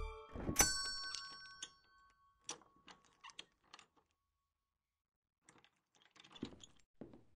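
Sound effects: a single sharp ding with a metallic ringing chime that fades over about a second, then a few scattered small ticks, and near the end a quick run of light metallic clicks and rattles.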